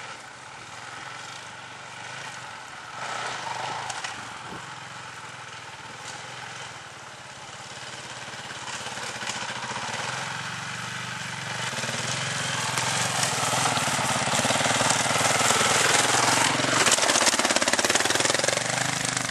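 Four-stroke dirt bike engine pulling up a trail, lugged at low revs, growing louder as the bike approaches and passes close by near the end.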